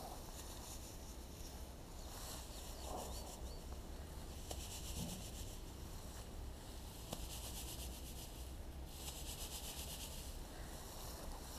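Open grassland ambience: a steady low wind rumble on the microphone, with two stretches of fast, high rasping in the grass.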